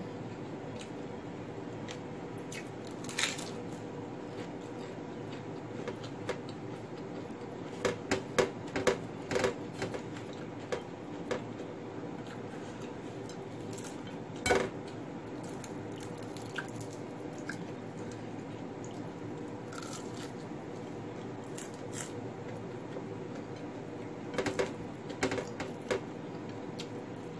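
Someone eating fried fish and rice by hand off a plate: scattered sharp clicks and taps of fingers and food against the plate, in a cluster about a third of the way in and another near the end, over a steady low hum.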